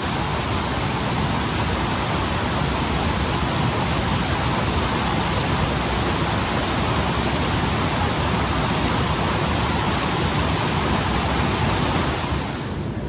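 Mountain stream rushing over rocks, a steady loud rushing of water. It drops off suddenly near the end.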